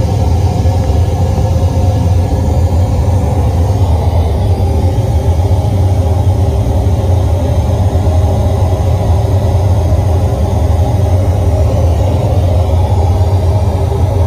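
Large subwoofer cabinets of a Javanese street sound system playing a steady, loud, deep rumble with no beat while the system is tuned. The sound sits almost entirely in the bass and low mids.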